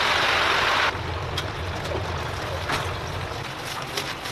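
Hot oil in a deep fryer sizzling loudly around whole chickens in the frying basket, cutting off suddenly about a second in. After that, a quieter background with a few light clicks and knocks.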